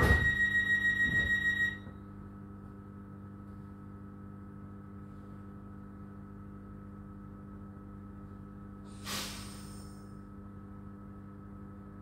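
Door warning tone of a West Midlands Railway Class 323 electric multiple unit beeping rapidly, cut off about two seconds in, with a knock as it starts. After that the stationary train's electrical equipment hums steadily, with a short hiss of air about nine seconds in.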